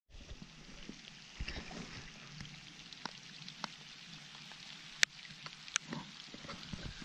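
Light rain falling on a lake's surface and the shore rocks: a steady hiss of many small drops with scattered ticks, and a few louder taps, the sharpest about five seconds in.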